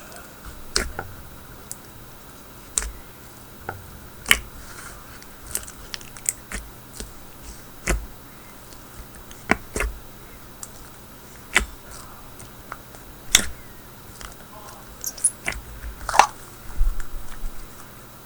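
A thick slime being squished and pressed by hand, giving irregular sharp pops and clicks about every second or two, some in quick little clusters.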